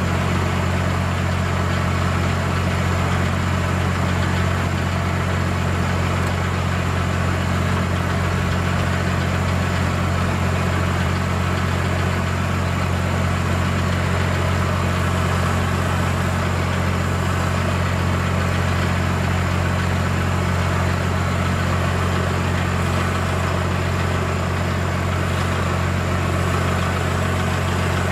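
An engine idling steadily, an even low hum that does not change.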